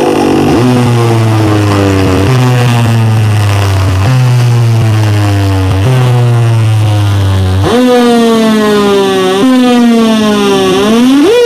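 Electronic synth sound effects played loudly through a DJ sound system during a sound check. A falling tone repeats about every two seconds over a deep, steady bass note. From about eight seconds in, the bass drops out and slower falling glides follow, ending in a rising sweep and a fast warbling wobble.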